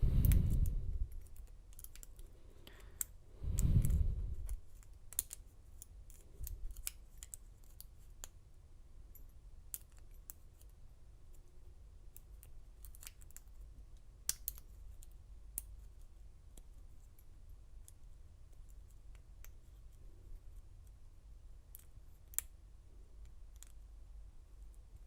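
Lock pick clicking against the pin stack of an American Lock core in a Schlage body, with light, scattered clicks throughout as the pins are worked. Two dull thumps from handling the lock come at the start and about three and a half seconds in.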